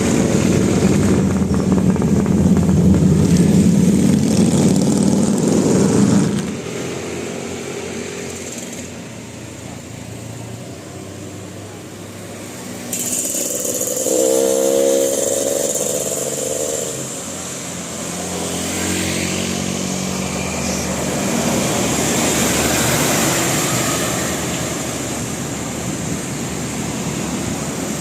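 Vehicle engines passing close on a road: loud for about the first six seconds, then dropping to quieter passing traffic, with a short pitched sound about halfway through.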